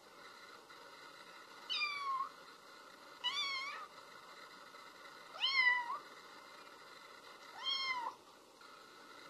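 Young kitten mewing four times, about two seconds apart, each a short high-pitched cry whose pitch rises and falls: a kitten calling for its mother.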